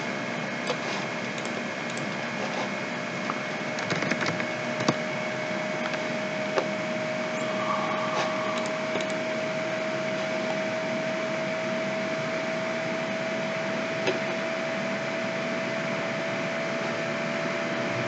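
Steady hiss of background noise with a faint steady hum running through it, and a few scattered short clicks from working at a computer.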